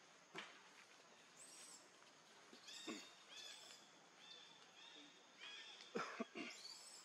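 Faint high-pitched animal chirps, short calls that come in clusters of several, with a few sharp knocks among them, two close together near the end.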